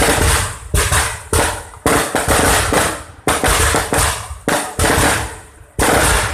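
Aerial fireworks bursting overhead in a rapid series of loud bangs, about one every half second, each fading quickly before the next.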